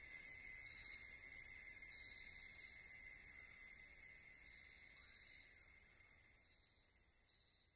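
Steady, high-pitched insect chorus, slowly fading out over the last few seconds.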